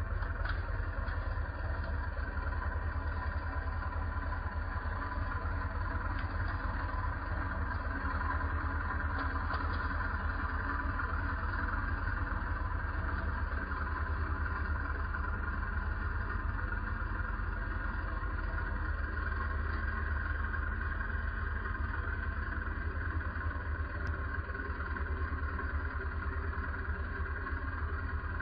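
An engine running steadily at a constant pitch and level, with no revving or gear changes heard.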